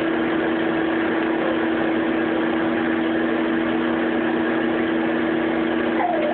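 Microwave oven running: a steady electrical hum under the whir of its fan.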